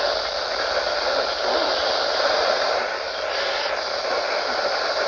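Steady static hiss from a weather radio receiver with no clear voice or tone coming through.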